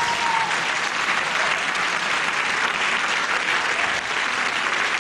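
A theatre audience applauding, steady dense clapping.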